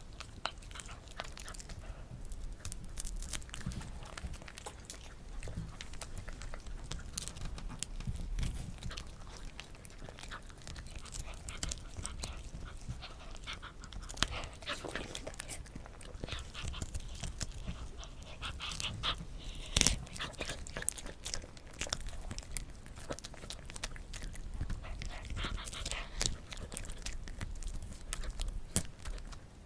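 Poodle chewing dried duck jerky, with irregular crunching and clicking bites and a sharp crack about twenty seconds in.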